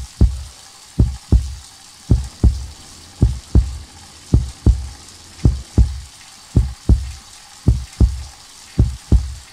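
Heartbeat sound effect: a slow, steady double thump (lub-dub) about once a second, over a faint hiss.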